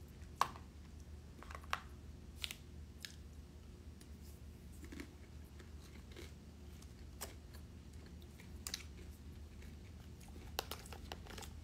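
A person eating tacos: quiet chewing, with scattered sharp clicks of a fork against a plate.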